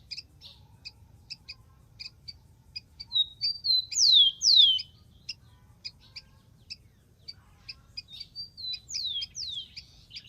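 Rufous-collared sparrow (Zonotrichia capensis) singing: clear whistles that slide down in pitch, two loud ones together about 4 s in and another pair about 9 s in. Between them are short warbled notes, over steady sharp chips repeated about three a second.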